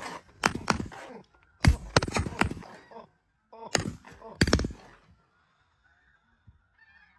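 A rapid volley of shotgun blasts from several hunters' Benelli semi-automatic shotguns, about half a dozen shots in the first five seconds. Faint snow geese calling follows.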